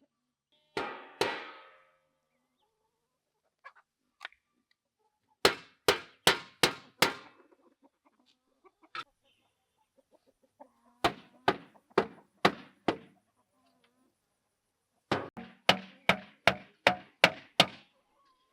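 Chickens clucking in short, quick runs of sharp clucks, about two or three a second, with a longer call near the start.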